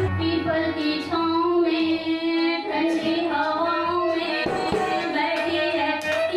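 Devotional Shiv bhajan being sung, a voice holding long, slowly bending notes over a steady musical accompaniment.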